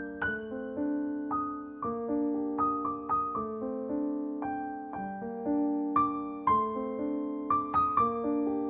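Background piano music: a gentle melody of struck notes, each ringing and fading, at an unhurried, even pace.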